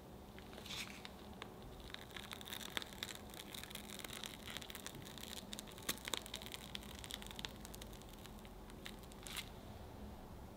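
Mascarpone cream squeezed from a plastic piping bag into a crepe cup: faint crackling of the bag and squishing of the cream, stopping near the end.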